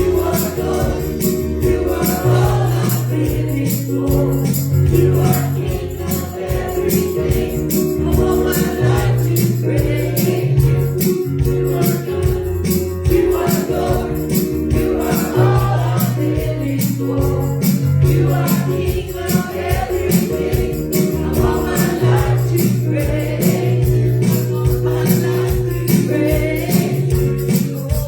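Live gospel worship music: voices singing over a band with sustained bass notes and a fast, steady percussion beat.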